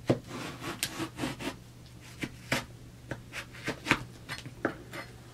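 A kitchen knife cutting through the rind and flesh of a watermelon quarter, making a series of crisp crunching cuts. The blade knocks on the cutting board, most sharply just after the start.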